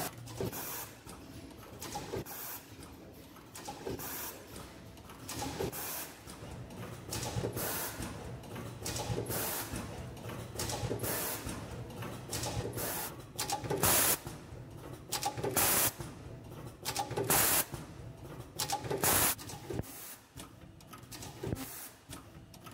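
Automatic invisible-zipper gapping and bottom-stop setting machine cycling: repeated sharp hisses of air from its pneumatic cylinders with clicks and knocks from the tooling, every second or two, over a steady low hum. The hisses are loudest in the second half.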